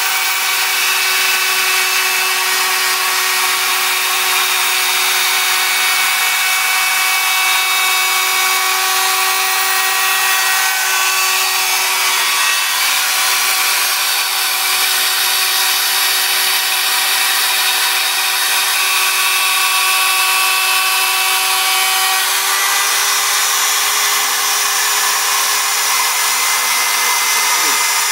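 CNC router spindle running and cutting a speaker hole in a baffle: a steady whine over a continuous cutting noise, its pitch shifting slightly about 22 seconds in.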